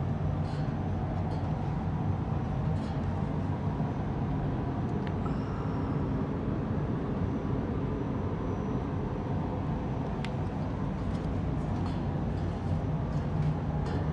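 Paint booth ventilation fans running with a steady low rumble and air rush, with a few faint ticks.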